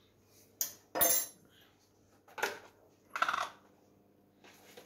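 Metal teaspoon, spice jars and jar lids clinking and knocking on a stone countertop while spices are measured out: four short clinks, the loudest, with a brief ring, about a second in.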